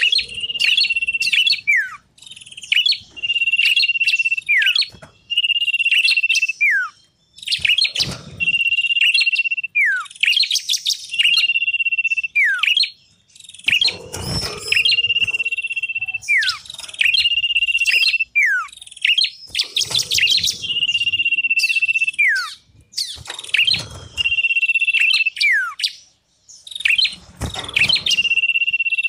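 Small songbird used as a lure call, singing one phrase over and over about every two seconds. Each phrase is a long steady whistle followed by a quick falling note and a few sharp chips.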